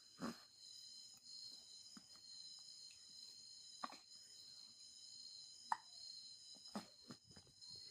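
Baby hiccuping: several short, sudden hiccups a second or a few seconds apart, over a faint steady high-pitched whine.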